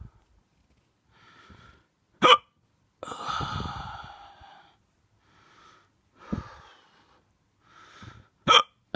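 A drunk person hiccuping: two sharp, loud hiccups about six seconds apart. The first is followed by a long breathy exhale, and softer breaths and smaller hiccup sounds come between them.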